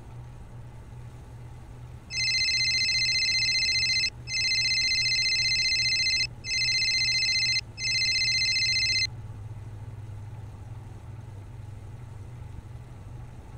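Mobile phone ringing: a steady electronic ringtone at one fixed pitch, sounding in four stretches with short breaks from about two seconds in until it stops about nine seconds in, when the call is answered. A low steady hum runs underneath.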